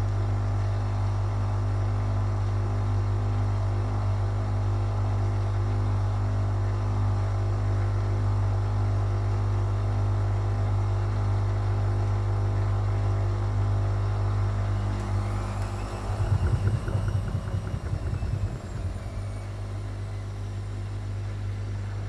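Whirlpool FL 5065 front-loading washing machine on a 400 rpm spin with an unbalanced load: a steady motor and drum hum. About 16 seconds in, irregular thumping for about three seconds alongside a faint rising and falling whine, then the hum settles a little quieter.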